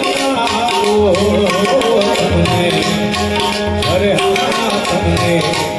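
Live devotional bhajan music: a male voice singing an ornamented melody over a steady harmonium, with tabla strokes keeping a continuous rhythm.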